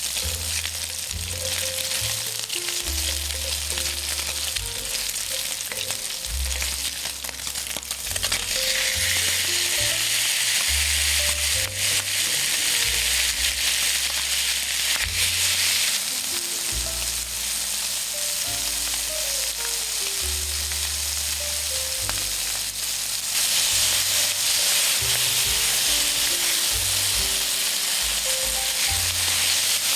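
Food sizzling and frying in oil on an iron teppan griddle. The sizzle swells louder for a stretch from about 8 seconds in to about 16 seconds, and again from about 23 seconds on. Soft background music plays underneath.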